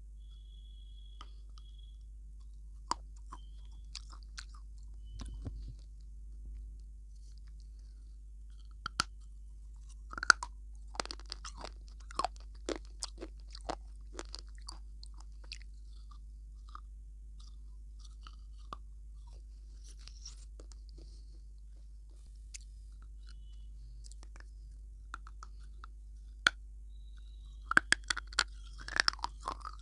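Close-miked bites and chewing of a hard, crunchy block: sharp crunches, scattered at first, coming in quick clusters about ten seconds in and again near the end.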